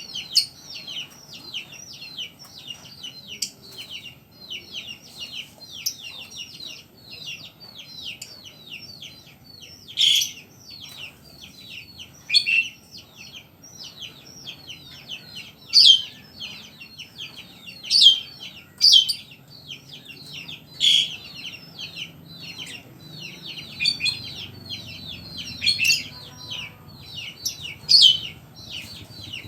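Caged songbird singing a continuous run of rapid, high chirps and trills, with louder sharp notes standing out every couple of seconds in the second half.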